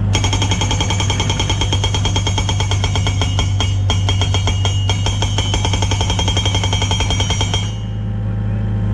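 Hydraulic rock breaker on a Yanmar mini excavator hammering in a fast, even rattle of blows with a metallic ring, over the machine's steady diesel engine. The hammering stops sharply near the end, leaving the engine running.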